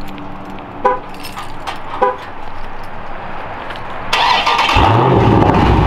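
Two short chirps, then a Dodge Challenger Scat Pack Widebody's 392 HEMI V8 is started with its mid-muffler and resonator deleted. The starter cranks about four seconds in, and the engine catches with a loud rising flare, then runs loud and steady.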